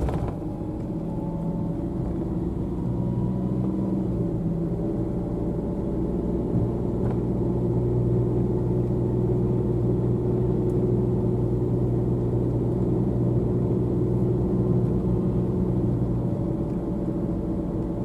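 Car engine and road noise heard from inside the moving car's cabin: a steady low drone whose pitch shifts slightly a few seconds in.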